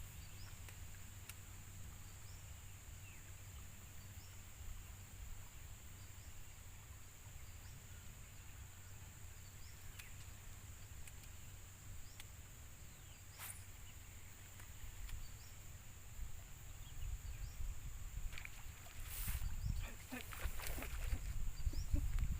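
Quiet rural outdoor ambience: a steady high drone, like insects, with faint scattered chirps. Low rumbling and clicks build over the last few seconds, like handling or movement close to the microphone.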